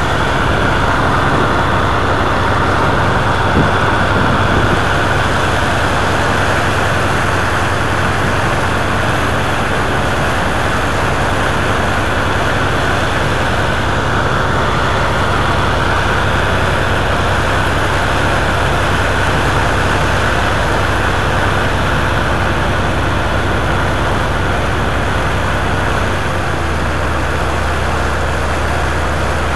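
Tugboat's diesel engine running steadily, a constant low drone with a noisy rush over it. The low engine note changes about three seconds before the end as the engine speed shifts.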